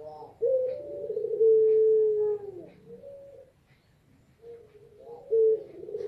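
Female puter pelung (Barbary dove) cooing, a call to a male: a stuttering start, then one long drawn-out coo that droops in pitch at its end about two and a half seconds in, a short quieter note, and a new call beginning near the end.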